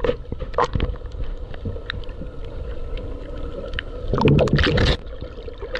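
Underwater sound through a submerged camera: a muffled low rumble of moving water with scattered faint clicks. About four seconds in there is a louder muffled rush of water lasting under a second.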